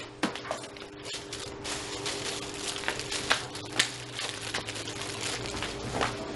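Rustling, clicks and small knocks of goods being handled and taken from shop shelves, over a faint steady hum.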